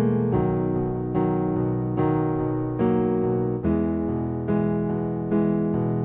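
Piano music: sustained chords with a new chord struck about every second.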